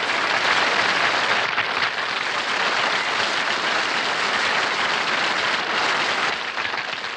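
Audience applauding, a steady wash of clapping that thins out and fades near the end.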